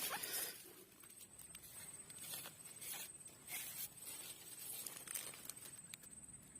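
Faint rustling and light scattered clicks, with a thin steady high-pitched tone underneath.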